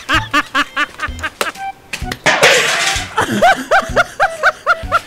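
Laughter in a rapid run of short rising-and-falling 'ha' syllables, about four or five a second, broken about two seconds in by a loud breathy rush before the laughing resumes. A faint low beat thumps underneath.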